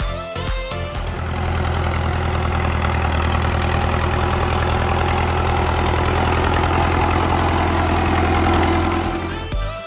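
Fordson Super Major tractor's four-cylinder diesel engine running steadily as the tractor drives across the hay field. Music plays for about the first second and comes back in near the end.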